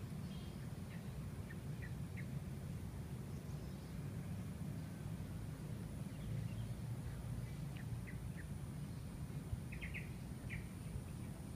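Small birds chirping in short, scattered calls over a steady low rumble and a faint steady high whine.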